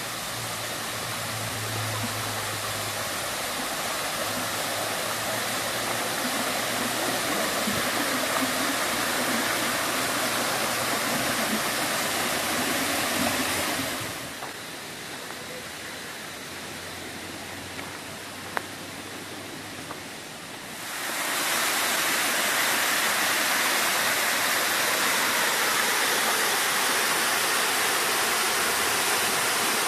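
Rushing water of a mountain stream, a steady hiss. For about seven seconds midway it drops to a softer, duller rush, with one small tick, then comes back at full level.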